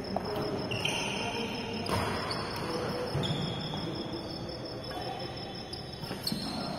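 Insect chirping steadily in a rapid high pulse, with a sharp racket hit on a shuttlecock about six seconds in.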